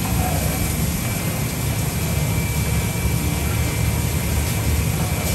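Steady low rumbling roar with an even hiss over it and a faint steady whine: the background noise of a commercial kitchen with a gas rice cooker running.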